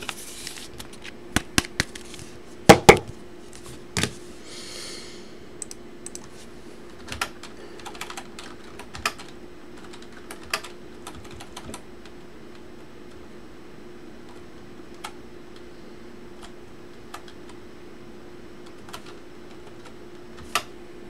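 Typing on a computer keyboard: irregular sharp key clicks, busiest in the first few seconds, then sparse and scattered. A faint steady hum runs underneath.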